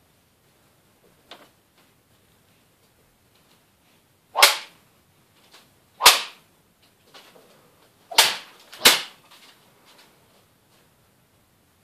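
Katana blade swishing through hanging paper in sharp cuts: four loud swishes, the last two under a second apart, with a faint one about a second in.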